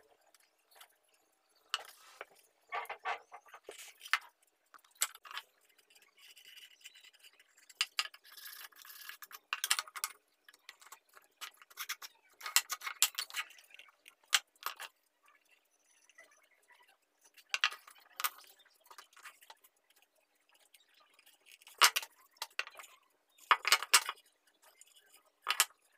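Small wooden boards being handled and fitted together on a wooden workbench while a box is assembled: scattered light knocks and clicks of wood on wood and on the bench top, coming in short clusters every second or two.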